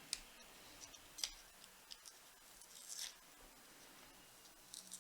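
A few faint plastic clicks and a short scrape as the twist-off battery cover of a smart body tape measure is worked open.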